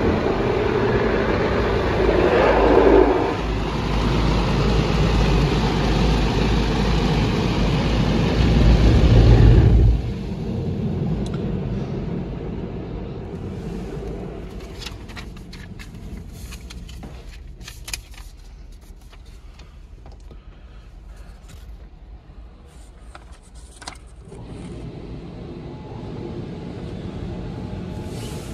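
WashTec SoftCare Prevo rollover car wash working over the car, heard from inside the cabin: a loud steady rush that cuts off suddenly about ten seconds in. Scattered ticks of dripping water on the bodywork follow, and a quieter steady noise comes back near the end.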